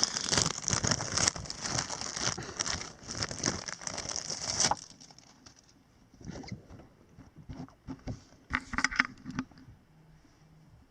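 Packaging being handled: a dense crinkling with many small crackles that stops abruptly about five seconds in, followed by a few scattered soft rustles and clicks.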